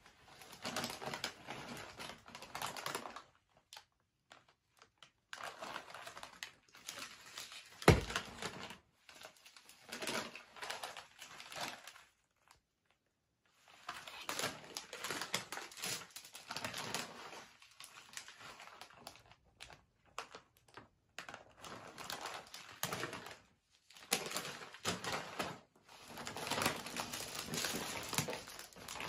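Paper or plastic packaging rustling and crinkling as a present is unwrapped, in repeated bursts of a second or few with short pauses, and one sharp knock about eight seconds in.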